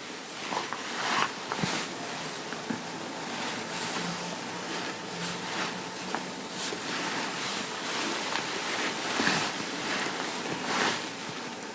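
Fabric rustling and rubbing as cloth is handled, with soft swishes every second or two over a steady hiss.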